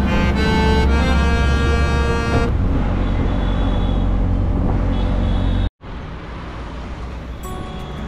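A loud burst of music at the start, then an auto-rickshaw's engine running amid road traffic, heard from the passenger seat. After a sudden cut partway through, quieter street traffic.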